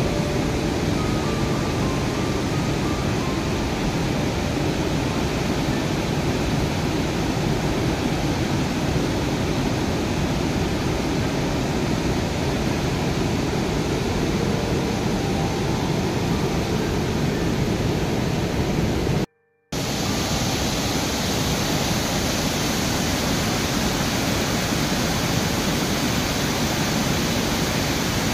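River water pouring over a low weir, a steady rush of white water. It cuts out for a split second about two-thirds of the way through, then carries on the same.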